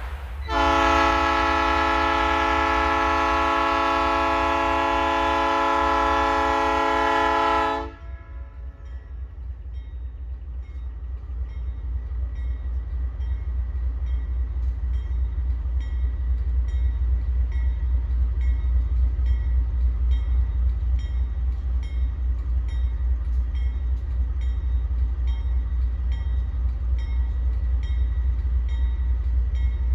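AC44i diesel locomotive's train horn sounding one long, loud blast of about seven seconds. After the horn stops, the departing freight train's low rumble builds, with a steady pulsing beat.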